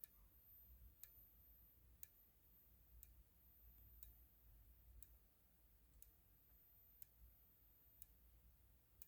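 Faint sharp ticks about once a second from a System Sensor SpectrAlert Advance speaker strobe flashing, with the speaker itself silent. Otherwise near silence.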